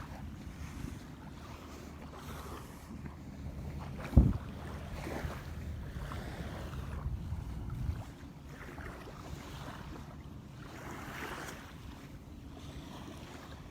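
Small waves washing up on the shore in soft, repeated swells, over a steady low rumble of wind on the microphone. A single dull thump about four seconds in.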